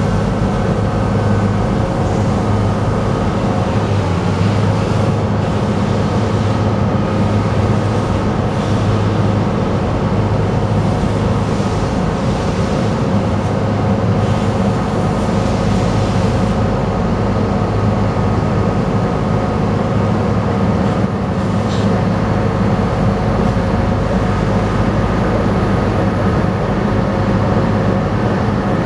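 Terex Fuchs MHL340 material handler's diesel engine running steadily under hydraulic load as its boom is lowered, with an added hiss that fades out about two-thirds of the way in once the boom comes to rest.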